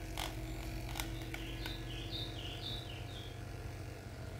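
Cordless percussion massage gun running steadily with a low hum, working again after its battery was replaced and the case closed. A few high chirps sound in the middle, and there are a couple of clicks near the start.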